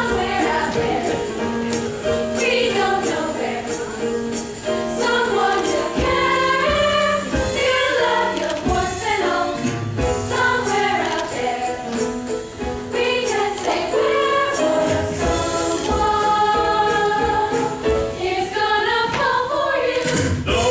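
Musical-theatre number: a group of voices singing together over an instrumental accompaniment.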